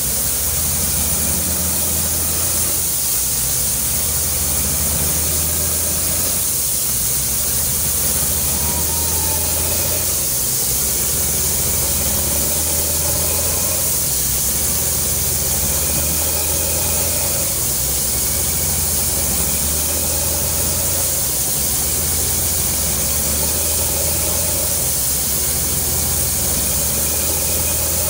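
PDTHR-200 truck-mounted DTH drilling rig at work: its engine running steadily under a loud, continuous hiss of compressed air from down-the-hole drilling.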